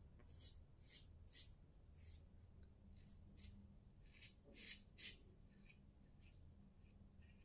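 Faint scraping of a razor through lathered stubble: about a dozen short strokes, roughly two a second.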